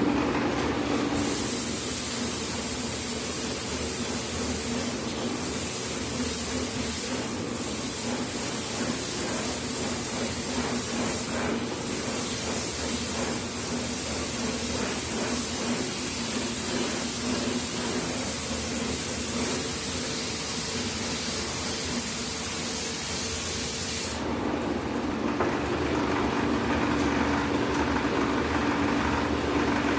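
Three-axis sanding machine running with a steady hum while a guitar soundboard is sanded: a loud high hiss of abrasive on wood starts about a second in and cuts off suddenly near the end, leaving the machine running on its own.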